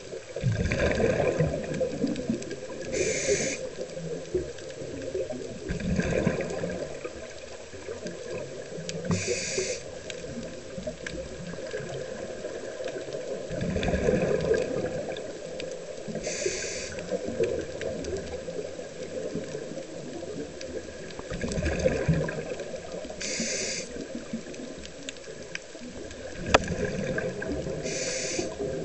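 Scuba regulator breathing underwater: a brief hiss recurring about every six to seven seconds, with bubbling, gurgling rushes of exhaled air between them.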